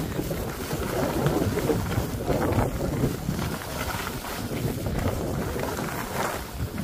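Wind rushing over the microphone of a skier on the move, with the skis hissing and scraping over wet, heavy snow in a few swelling strokes.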